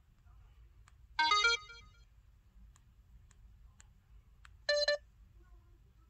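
LG SU910 (Cyon) phone speaker playing two short alert tones. About a second in comes a quick chime of several stepping notes, the input-password alert. Near five seconds comes a shorter, lower tone that pulses twice, the warning alert. Faint clicks of a stylus tapping the touchscreen fall between them.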